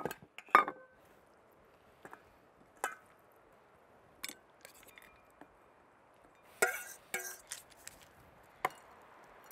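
Dishes clinking as pasta is served from a stainless steel mixing bowl into enamelware camp bowls: scattered light clinks and knocks of metal against enamel, some ringing briefly, with a busier cluster about seven seconds in.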